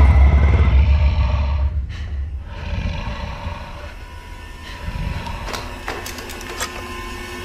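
Horror film trailer sound design: a deep low rumble hits at the start and fades over about two seconds. A quieter, tense bed of sound follows, with a few small clicks in the second half.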